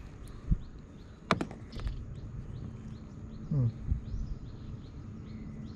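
Outdoor river-bank ambience with a bird chirping over and over, a few times a second, while several sharp knocks and taps of handled gear come through, one about a second and a half in and a couple more near the middle.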